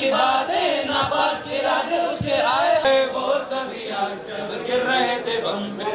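A group of voices singing together in unison.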